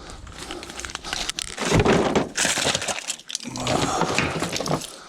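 Scrap items being handled and moved: a rattling clatter with many sharp knocks, and two longer stretches of scraping and crunching about two and four seconds in.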